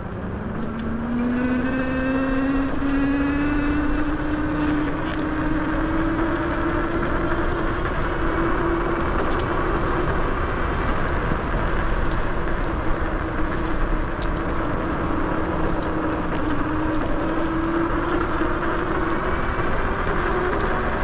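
E-bike's Bafang G62 hub motor whining under power, its tone rising over the first few seconds as the bike speeds up and then holding fairly steady, over a steady rushing noise of riding.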